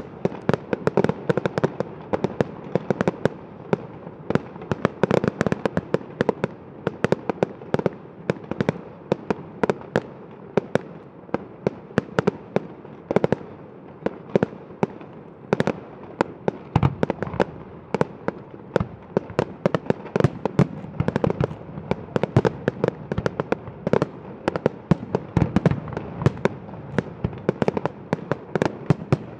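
Fireworks display: a continuous barrage of sharp bangs and crackling, several reports a second with no pause.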